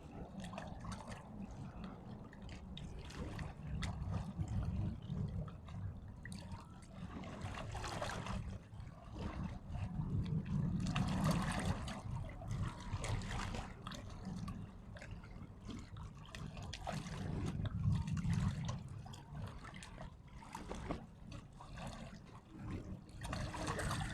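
Water splashing and trickling unevenly, over a low rumble.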